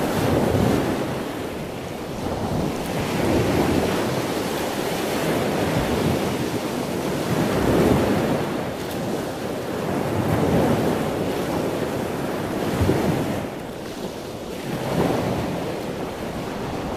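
Ocean surf breaking on a sandy beach, the wash swelling and fading every two to three seconds.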